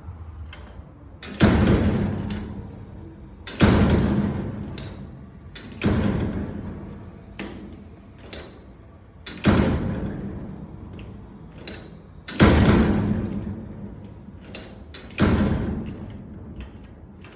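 A gate door with a broken lock being shut and worked repeatedly: about six loud bangs, each ringing out over a second or two, with smaller clicks of the lock between them.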